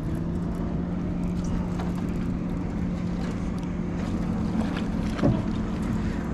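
Boat motor running at a steady hum with an even wash of wind and water noise, and one short knock about five seconds in.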